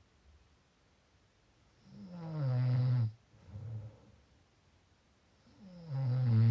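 Snoring during sleep: two loud, rattling snores about four seconds apart, each lasting about a second and dropping in pitch. A softer breath follows the first; the second snore is the louder and comes near the end.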